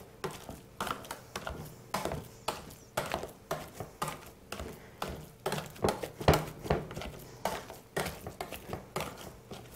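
Metal potato masher working boiled sweet potato in a stainless steel pot: a soft squish and a knock against the pot about twice a second.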